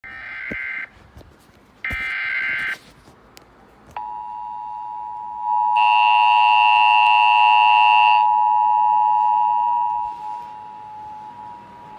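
Emergency Alert System alert broadcast over FM radio: two buzzy, screeching SAME data bursts about a second long, then about four seconds in the steady two-tone EAS attention signal begins and holds to the end, louder for a couple of seconds in the middle.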